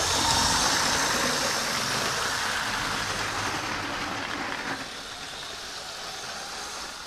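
LEGO Power Functions train motors running with both motors at full speed, driving a LEGO train along plastic track. A steady running noise that eases off a little about five seconds in.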